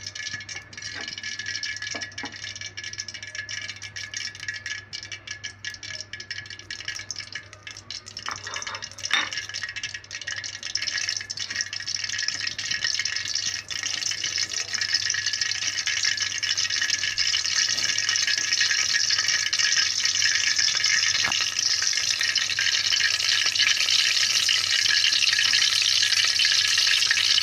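Cooking oil heating in an aluminium pot over a gas flame: scattered crackles at first, then a sizzling hiss that grows steadily louder as the oil gets hot.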